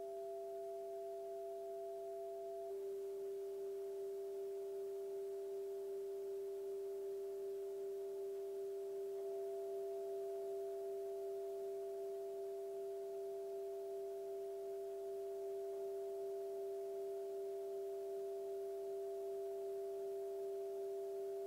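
Steady electronic drone of two held, pure tones, a stronger lower one and a fainter higher one, sustained without a break from a looper; the tone thickens slightly about three seconds in.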